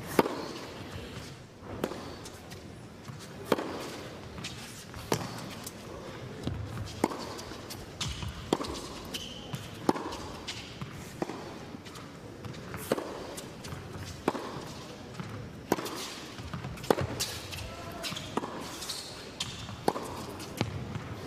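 Tennis ball struck back and forth with rackets in a long rally, a sharp pop about every second and a half.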